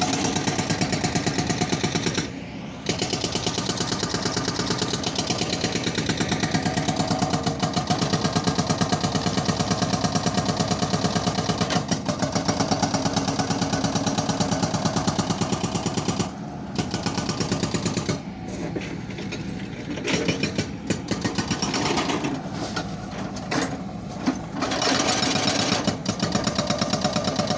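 Demolition breaker hammering concrete in a rapid, steady stream of blows. It stops briefly twice, then works in short stop-start bursts for several seconds near the end before running steadily again.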